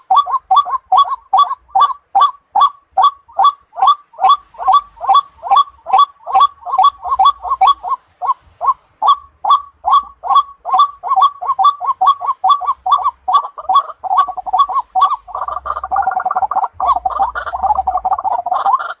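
Waterhen calling: a long series of evenly repeated croaking notes, about three a second, that turns into a denser overlapping chorus about two-thirds of the way through.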